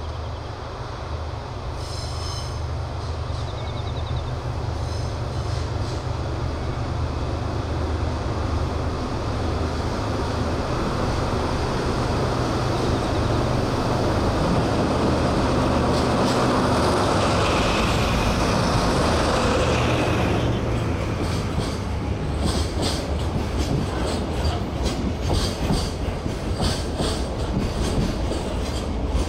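JR Freight DD51 twin-engine diesel-hydraulic locomotive approaching and passing, its engines running with a steady low drone that grows louder to a peak, with a high-pitched tone for a few seconds as it goes by. After it passes, the container wagons clatter over the rail joints in a steady rhythm.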